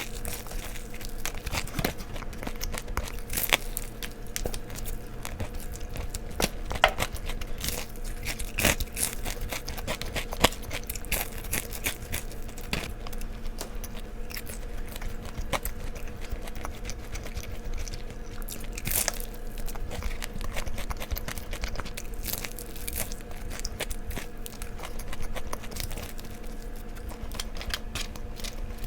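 Crunchy bites and chewing of crispy fried chicken reheated in an air fryer, with irregular sharp crackles as the crust breaks, over a faint steady hum.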